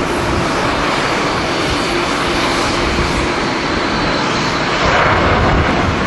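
Jet engines of a Delta Airbus A330-900neo at takeoff thrust, a steady loud roar as the airliner accelerates down the runway and lifts off, with wind buffeting the microphone as an uneven low rumble.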